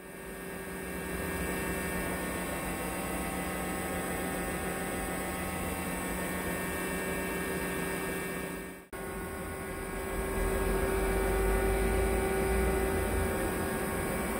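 Hyundai Wia SKT250Y CNC lathe powered up and running: a steady electrical-mechanical hum with several fixed tones. The hum cuts out for an instant about nine seconds in, then goes on with a stronger low hum.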